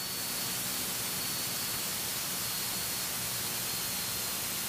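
Steady, even hiss of cabin noise in a Beechcraft Baron in flight on final approach, with a faint low hum underneath.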